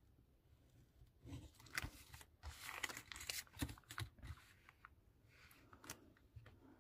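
Quiet rustling and sliding of a sheet of cardstock and a clear plastic ruler being lifted, turned and laid back down on a craft mat, with a few light clicks, mostly between about one and four and a half seconds in, and a short rustle and a click near the end.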